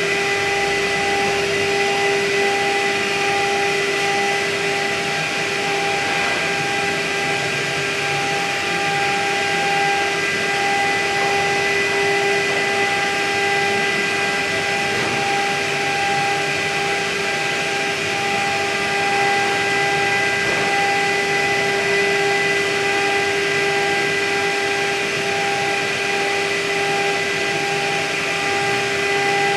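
CNC milling machine spindle running at a steady high speed while a small end mill cuts a contour into a plastic plate: an even whine of fixed pitch over a steady hiss, unchanging throughout.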